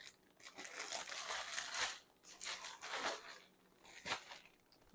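Plastic bacon packaging crinkling and rustling as it is handled, in several short bursts with brief pauses between.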